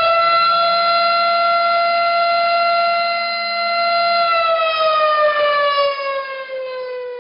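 Ceremonial siren marking the moment of the Independence proclamation, holding one steady pitch and then winding down, falling in pitch and fading away over its last few seconds.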